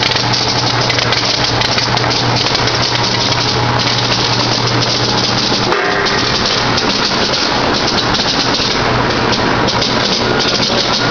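Cranberry sorting line running: conveyors and rollers carrying cranberries give a loud, steady rattling clatter over a constant machine hum, with a brief break about six seconds in.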